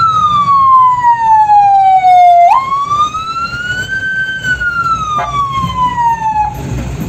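A loud siren tone that slides slowly down in pitch, jumps back up suddenly about two and a half seconds in, climbs again, then falls and cuts off shortly before the end, over a low rumble of engines and crowd.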